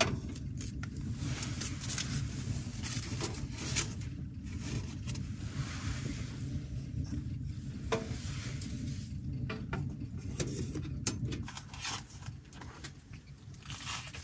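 Wood fire burning in a small tent stove, a steady low rumble with scattered crackles and pops, along with light clicks of wood being handled.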